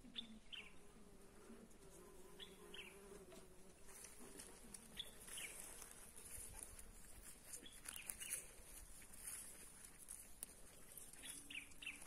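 Faint bird chirps, short falling notes in ones and pairs every few seconds, with an insect buzzing in a low wavering drone during the first few seconds.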